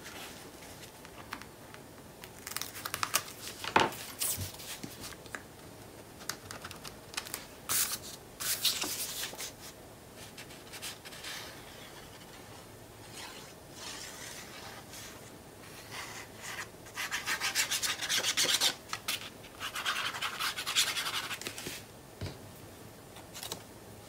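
Patterned paper and cardstock rubbed, slid and smoothed by hand on a cutting mat, in scattered bursts of dry scraping, with a light tap about four seconds in.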